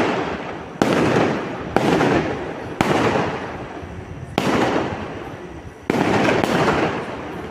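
A run of five sudden bursts, about one to one and a half seconds apart, each starting abruptly and fading away in a noisy hiss.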